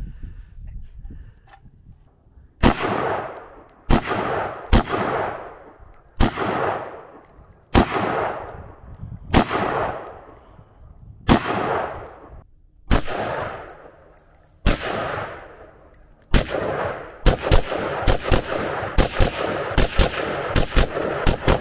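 Gunshots: single shots about every one to one and a half seconds from about three seconds in, each followed by a long echoing tail. From about sixteen seconds in they turn into a rapid string of several shots a second.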